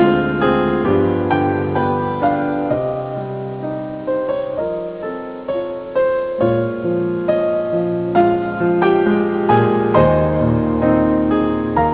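Slow, gentle solo piano music, a melody of struck notes over held low chords.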